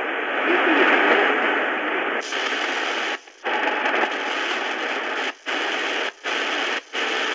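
Shortwave static hissing from the Prunus J-150 BTS radio's speaker as its tuning knob is turned. A weak station is faintly heard under the noise at first. About two seconds in the hiss turns brighter, then cuts out for a moment four times as the dial moves between frequencies.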